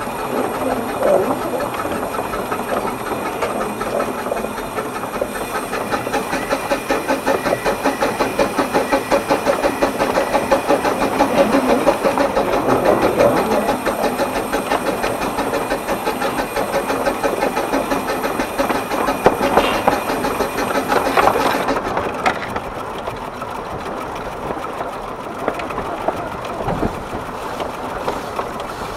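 Exmoor Steam Railway-built 12¼-inch gauge steam locomotive hauling four coaches, working hard with a rapid, even beat of exhaust chuffs as it runs onto a 1 in 50 climb. The sound eases and softens about three quarters of the way through.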